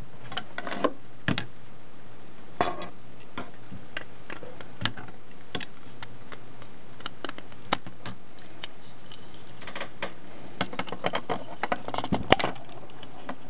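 Sharp plastic clicks and snaps of blue Loc-Line ball-and-socket hose segments being handled and pressed together in Loc-Line assembly pliers. The clicks are scattered at first, then come in a quick cluster near the end, with the loudest snap among them.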